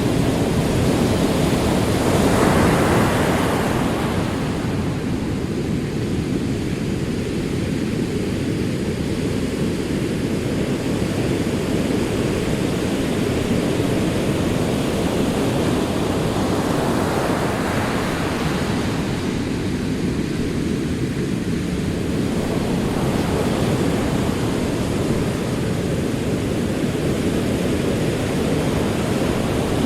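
Ocean surf: a steady wash of rolling waves, with a wave breaking and washing in about two seconds in, another about halfway through, and another building near the end.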